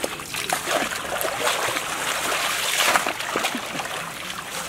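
Water splashing and trickling as a fishing net is hauled and worked by hand through shallow, weedy water, with many short irregular splashes.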